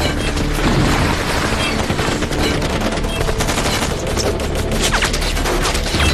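Dense film-soundtrack gunfire: a fusillade of rifle and machine-gun shots that starts abruptly and keeps going without a break, with a few short sliding whines later on.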